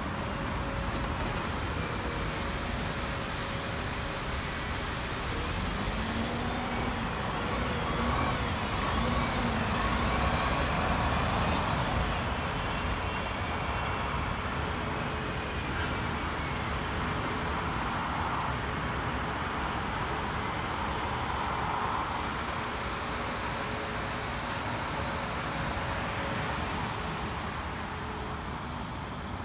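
Double-decker bus engine and road traffic: a bus drives through, its engine note rising and falling several times in the middle, over a steady traffic hum.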